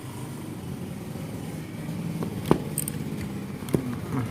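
Metal parts of a Nautilus Click R rear bicycle hub being handled as it is opened: two sharp clicks and a brief light metallic jingle. A steady low engine hum runs underneath.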